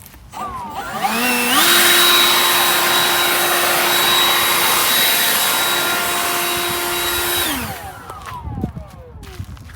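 Leaf blower winding up to full speed about a second in and running with a steady whine and rush of air, then winding down and spinning to a stop over the last couple of seconds.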